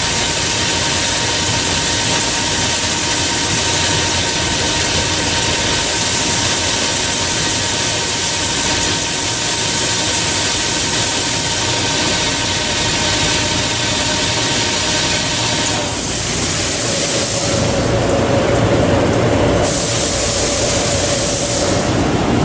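DAMA HDC-2020 high-speed CNC drilling center surface milling: a steady loud cutting noise with high whining tones from the spindle. About 16 seconds in the whine stops and the sound shifts to a lower steady tone with a changing hiss.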